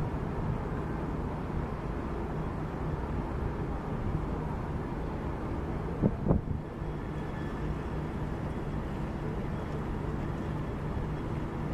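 Ship's engine running with a steady low hum as the tall ship Pelican of London manoeuvres away from the quay, under outdoor harbour noise. Two short knocks about six seconds in.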